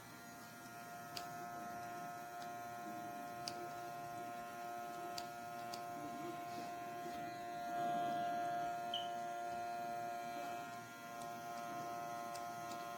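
Small electric compressor of a portable airbrush kit running with a steady whine of several tones. It swells briefly about eight seconds in, with faint scattered ticks.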